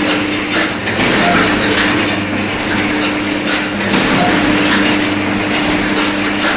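Automatic paper dona making machine running: a steady motor hum with repeated mechanical clicks and knocks from its working cycle.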